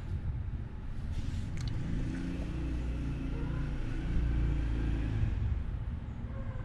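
A motor vehicle's engine rumble that swells and then fades, as of a car passing by.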